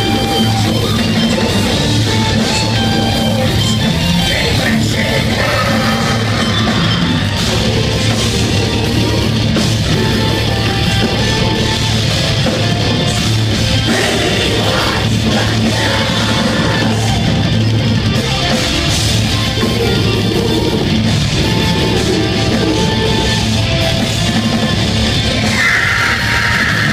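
Death metal band playing live: distorted electric guitars and a drum kit over harsh shouted vocals, loud and dense without a break.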